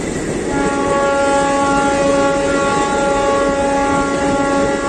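Passenger train coaches running past at speed with a loud, steady rumble of wheels on rails. About half a second in, a long, steady horn blast starts and is held.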